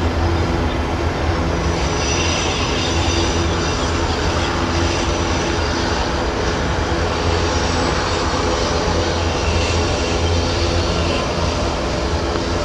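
A long train of iron-ore hopper cars rolling steadily through a curve, a continuous heavy rumble. A thin, high wheel squeal comes and goes over it, starting about two seconds in and returning near the end.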